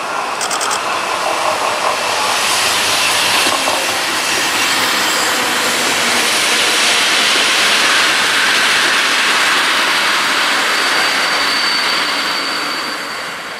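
SA138 diesel railcar hauling a 120A trailer car passing close by: a loud, steady rush of engine and wheels on the rails that builds to a peak past the middle and eases off near the end. A thin, high whine comes in over the last couple of seconds.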